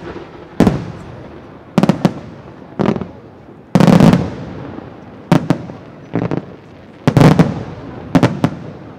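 Aerial firework shells bursting overhead: sharp bangs roughly once a second, some in quick pairs, each fading away in an echo.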